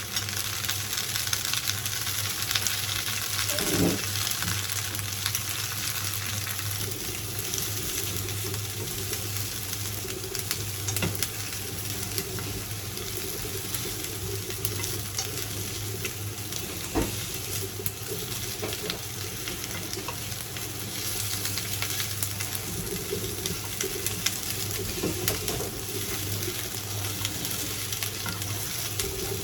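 Halved green peppers sizzling steadily in a frying pan as they brown, with an occasional faint click or knock.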